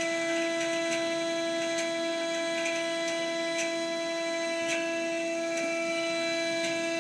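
Haas CNC mill running, its spindle giving a steady, even-pitched whine as the end mill cuts 1/8-inch aluminum plate, with faint light ticks about once a second.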